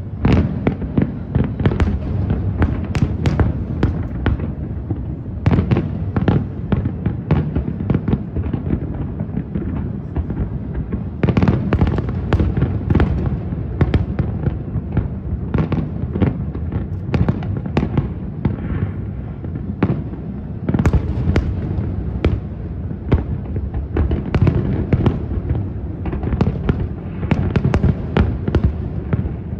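Fireworks display: a continuous barrage of aerial shell bursts, many sharp bangs a second over a steady low rumble, with denser volleys about eleven seconds in and again around twenty-one seconds.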